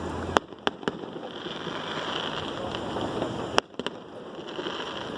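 Fireworks going off: three sharp bangs in the first second, then another quick cluster of bangs about three and a half seconds in, over steady background noise.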